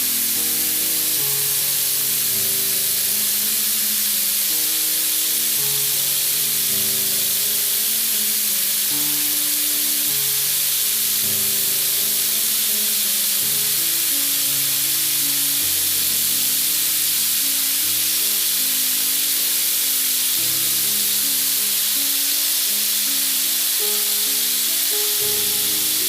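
Marinated tandoori chicken pieces frying with a steady sizzle, under background music with a simple stepping melody.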